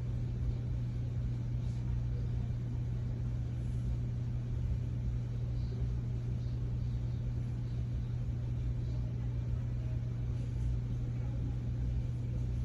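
Steady low hum with a faint rumble beneath it, unchanging throughout: background room tone.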